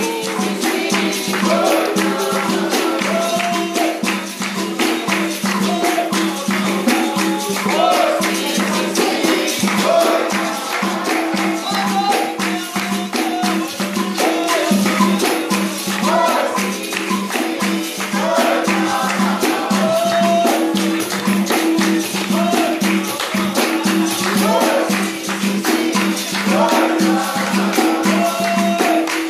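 Capoeira music: berimbaus led by the low gunga, sounding two alternating notes over and over, with a pandeiro's jingles and rattling, and voices singing over them.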